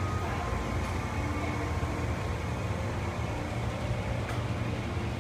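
Amtrak passenger train alongside the platform, giving a steady low hum and rumble.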